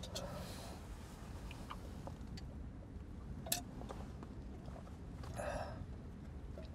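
Quiet car interior with a low steady rumble; a single sharp click about three and a half seconds in, then a man's short breathy gasp near the end, after a swig from a hip flask.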